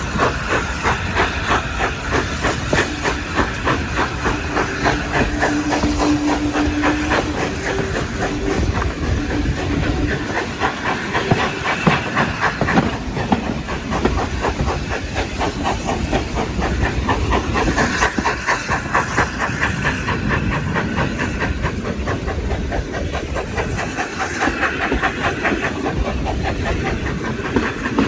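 Steam locomotive running at speed, heard from a carriage in the train behind it: a fast, even chuffing from the exhaust mixed with the rumble and clatter of the carriage wheels on the track and rushing air. A short, steady low tone sounds for a few seconds near the start.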